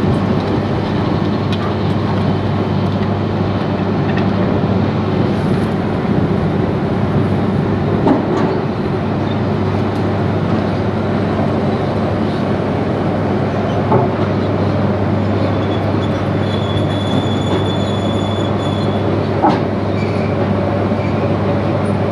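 Steady loud rumble and hum of sugar-factory machinery at the cane-unloading crane, broken by a few sharp clanks. A thin, high metallic squeal runs for a few seconds past the middle.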